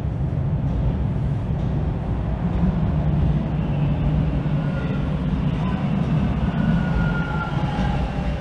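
TTC subway train pulling into the station: a loud, steady low rumble, with thin high whining tones coming in about halfway through as it slows.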